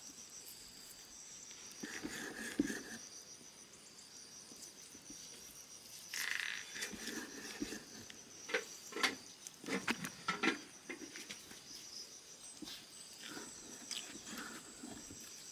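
Large knife slicing through pork fat on a wooden stump chopping block: soft cutting and scraping with a cluster of short knocks of the blade on the wood about halfway through. Insects chirp steadily behind it.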